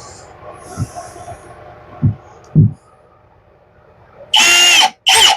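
A few sharp knocks from handling parts, then a power drill runs in two short bursts near the end, each about half a second, with a steady motor whine as it drives stainless steel screws into a small bracket.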